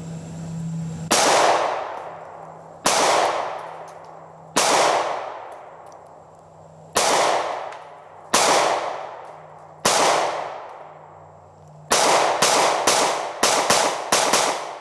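Smith & Wesson M&P Shield Plus 9mm pistol firing: six shots spaced a second and a half to two seconds apart, then a quick string of about seven in the last three seconds, each crack ringing out in a long fading echo.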